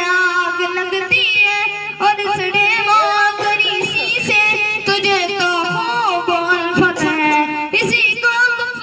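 Boys' voices singing an Urdu nazam, a devotional poem, in long held notes with wavering, ornamented pitch.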